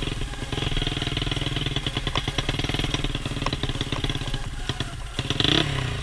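Dirt bike built on a Yamaha Jupiter four-stroke single-cylinder engine, running at low speed with an even beat of exhaust pulses. Its pitch briefly rises near the end.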